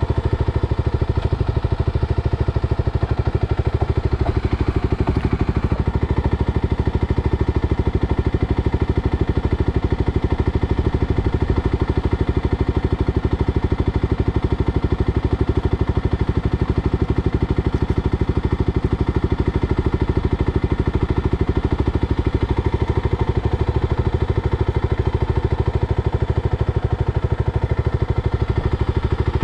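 An engine idling steadily, a low, even pulsing hum that holds the same pitch throughout.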